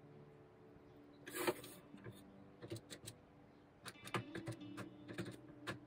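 A plastic Casio scientific calculator set down on a wooden desk with a short scraping knock, followed by a run of irregular clicks as its keys are pressed, under soft background guitar music.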